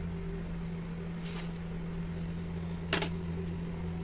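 A steady low hum, with a soft rustle of handling about a second in and a single sharp clack about three seconds in as a small bowl of ketchup is set down on the plate.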